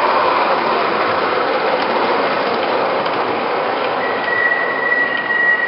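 MTH Premier O-gauge R40 slant subway model train running past on three-rail track, with a steady rushing sound of wheels and motors mixed with its onboard subway sound effects. About four seconds in a thin, steady high tone starts.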